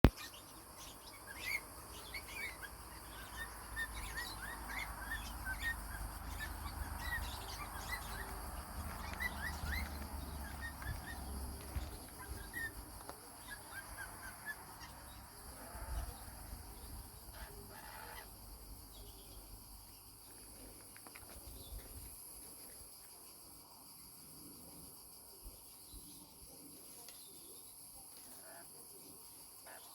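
Lorikeet chirping in quick runs of short, high calls through the first half, thinning out after about eighteen seconds to scattered calls over a steady hiss. A low rumble runs under the first twelve seconds.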